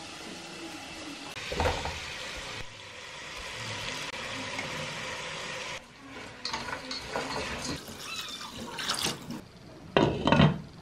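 Sliced tomatoes tipped into a hot metal pot of chicken and sizzling steadily. Then chopsticks scrape and tap against the pot as they are stirred, and a glass pot lid is set on with a clank about ten seconds in, the loudest sound.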